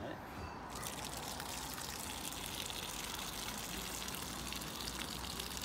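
Hot crab-boil water being poured out of the pot, a steady gushing splash that starts about a second in.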